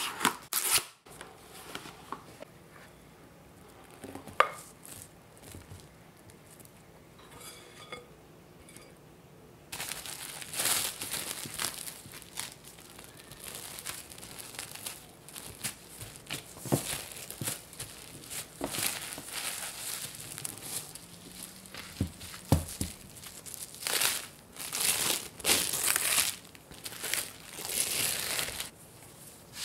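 Plastic cling wrap (Saran Wrap) crinkling and rustling as it is pulled from its box, folded around a block of pie dough, and peeled open again. There is a short burst at the start and a quieter stretch, then dense, irregular crinkling from about ten seconds in.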